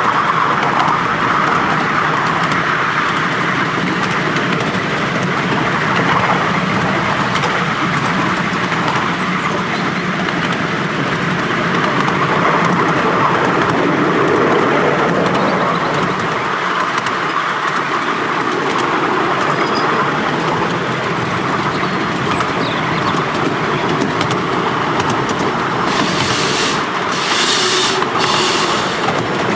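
Miniature steam train running along its track, a steady rumble and rattle of carriage wheels on the rails heard from an open carriage. Near the end come three short bursts of hissing steam from the locomotive.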